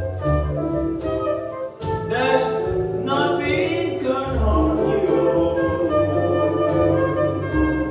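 Concert flute playing a melody with ornamented runs over a recorded accompaniment that carries a low bass line.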